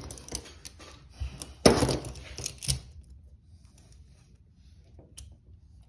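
Steel handcuffs and keys clinking and rattling as they are handled, with a louder rattle about two seconds in, then a few faint clicks.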